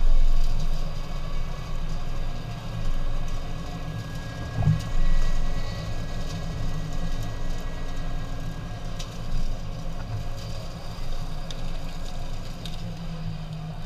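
Steady low engine hum from a pickup truck crawling along a rough dirt track behind a tractor towing a mower, with a brief thump about five seconds in.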